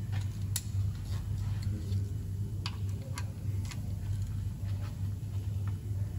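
A handful of short, sharp, irregular clicks from a ratchet and 13 mm socket being fitted to and worked on a car's sump drain plug, over a steady low hum.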